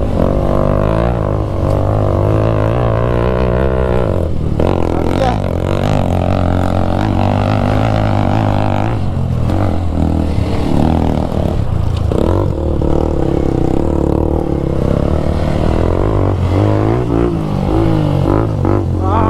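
Motorcycle engine running steadily under way, its pitch wavering up and down.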